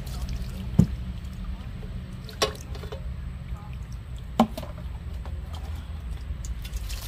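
Water poured and splashed from a plastic dipper over a metal pot lid as it is rinsed, with three sharp knocks about one, two and a half and four and a half seconds in, over a steady low hum.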